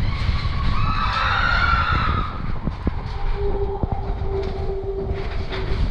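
Matterhorn Bobsleds coaster sled running along its tubular steel track: a loud, steady rumble of the wheels. About a second in a high wavering sound rises over it for a second or so, and from about three seconds in a steady humming tone holds until near the end.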